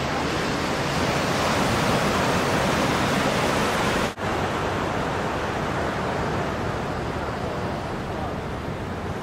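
Ocean surf breaking and washing in: a steady rushing wash of noise that cuts out for an instant about four seconds in.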